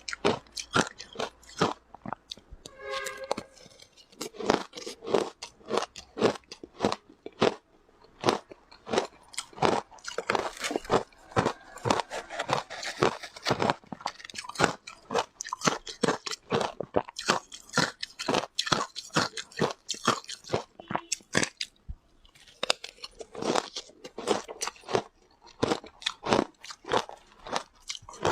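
Close-miked biting and chewing of shaved ice: a rapid run of crisp crunches, pausing now and then for a second or so.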